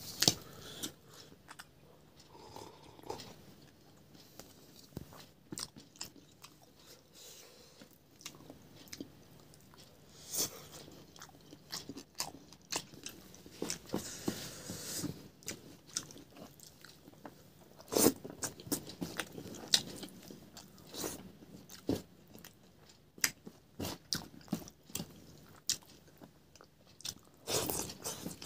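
Close chewing and crunching of food with the mouth open, with wet smacks and irregular sharp clicks, the sharpest a little past the middle.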